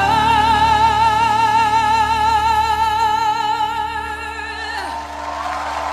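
A singer holding one long high note with a wide, even vibrato over backing music, the note ending near the end while the backing carries on.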